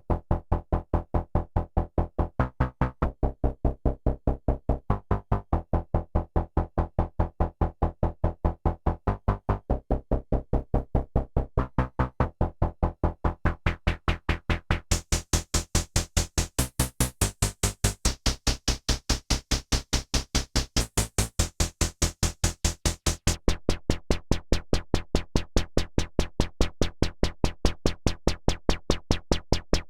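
EDP Wasp synthesizer playing a fast, evenly repeating pulsing pattern. About halfway through the sound turns much brighter and buzzier, then goes duller again near the end.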